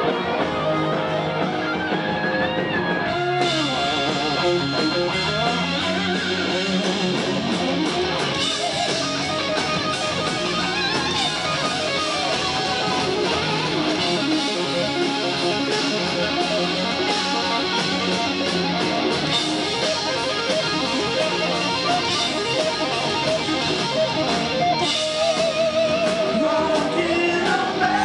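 Live rock band playing an instrumental passage with no vocals: electric guitars over drums and keyboards, with a lead line that wavers and bends in pitch, most plainly near the start and again near the end.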